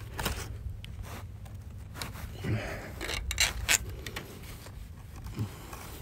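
Scattered scrapes and clicks of gloved hands working a fence wire against a wooden post.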